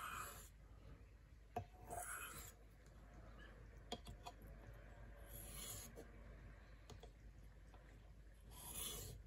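Faint scraping strokes of the Leatherman PST's knife blade: four separate drawn strokes a couple of seconds apart, each a short hiss, with a few light clicks in between.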